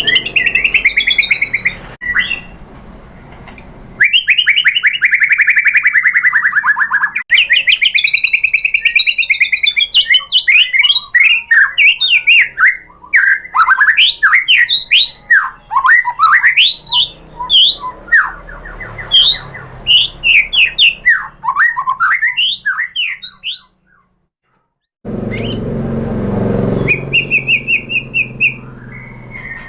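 White-rumped shama (murai batu) singing a loud, varied song of whistled glides and rapid trills. The song cuts out briefly about three-quarters of the way through, then resumes.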